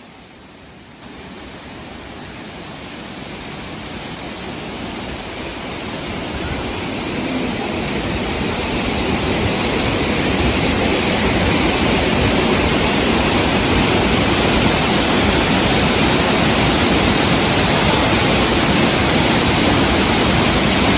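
Waterfall: a steady rush of falling water. It fades in over about the first ten seconds, then holds steady.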